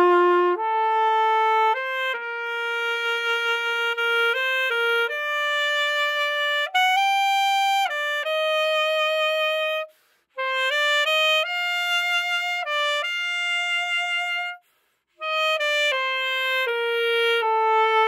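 Solo alto saxophone playing a slow, expressive melody, held notes shaded with vibrato. It stops briefly for a breath about ten seconds in and again near fifteen seconds.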